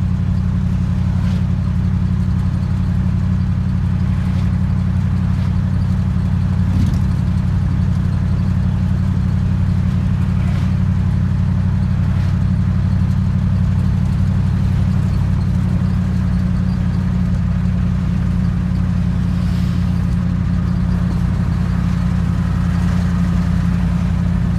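Steady engine and road drone inside the cab of a moving squarebody Chevrolet pickup truck, low and even throughout.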